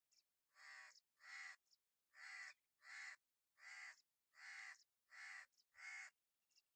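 Crow cawing: eight caws in a steady series, a little under a second apart.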